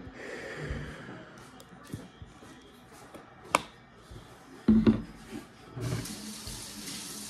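Plastic ketchup squeeze bottle being squeezed and handled upside down: scattered clicks, taps and squirts, the loudest cluster about five seconds in. About six seconds in, a steady rushing hiss begins and carries on.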